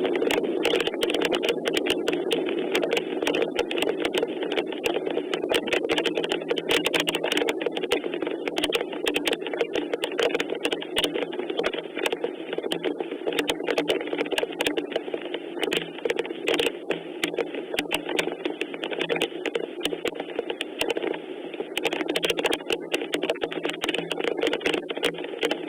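Steady rain falling, a thick run of sharp clicks of raindrops striking over a constant hiss.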